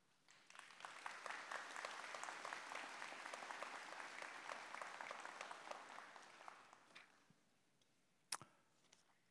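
Audience applauding: many hands clapping, swelling in the first second and tapering off after about six seconds. A single sharp tap near the end.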